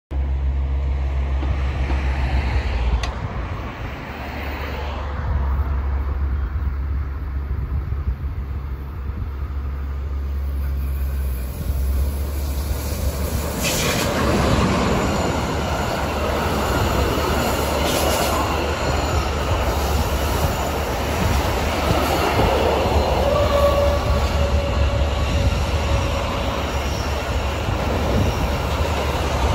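Intermodal freight train passing, hauled by a Siemens Vectron electric locomotive. A low rumble at first, then about 14 seconds in the locomotive goes by and the wagons roll past with steady wheel-on-rail noise and a few sharp clicks. A wheel squeal sounds for a few seconds later on.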